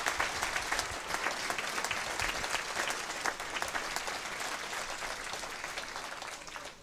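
Crowd applauding, a dense patter of many hands clapping that thins out and fades near the end.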